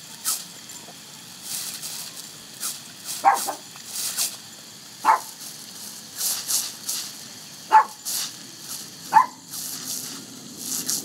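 A pug biting and lapping at a jet of water from a garden hose: repeated short splashing, slurping bursts over the faint hiss of the spray. Four short, sharp noises from the dog stand out as the loudest sounds.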